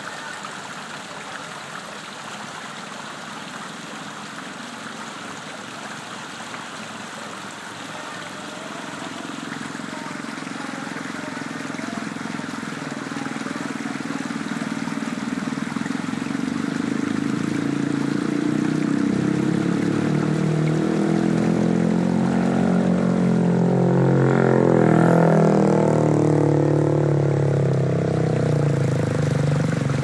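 River water gurgling and rushing over a rock ledge. From about a third of the way in, an engine grows steadily louder until it drowns out the water, passes closest about five seconds before the end, and keeps running.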